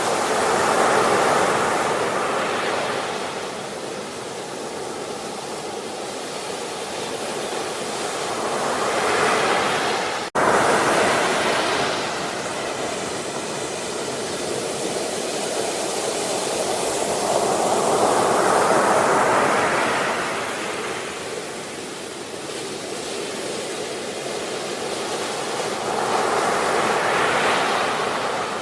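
Ocean waves breaking and washing on the shore. The surf swells and falls back four times, roughly every eight to nine seconds, with a brief sudden cut in the sound about ten seconds in.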